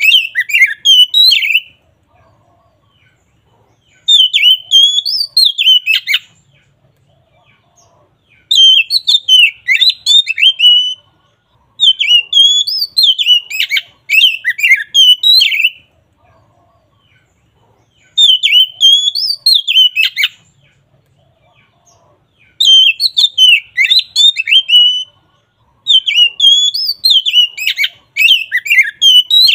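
Oriental magpie-robin (kacer) singing its loud, open 'ngeplong' song in rapid warbling phrases of about two seconds each, with short pauses between them.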